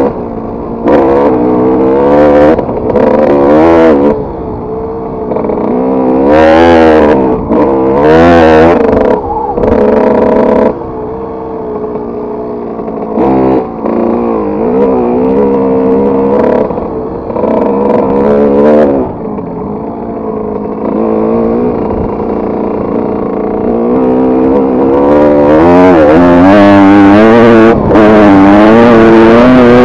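Kawasaki KX125 single-cylinder two-stroke motocross engine revving up and easing off in repeated short bursts as the bike is ridden, then held at high revs for several seconds near the end.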